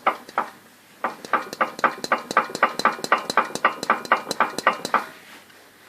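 Engine knocking: a sharp metallic knock repeating evenly about five times a second. It breaks off briefly just after the start, resumes about a second in and stops about five seconds in.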